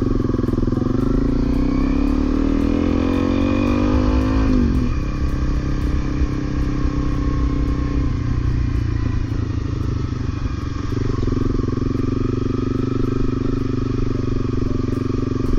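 Honda CRF250L's single-cylinder four-stroke engine pulling away: its pitch climbs steadily for about four and a half seconds, drops sharply, then runs on at a fairly steady pace.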